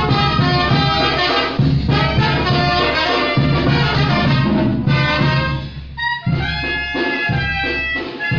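Brass band music, with trumpets and trombones over a deep bass line that drops out briefly about six seconds in.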